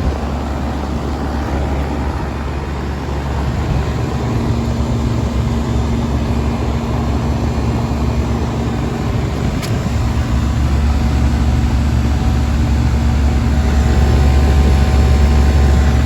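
1996 York Stellar central air conditioner's outdoor condensing unit running: a steady low hum from the compressor and condenser fan, with a higher steady tone joining about four seconds in.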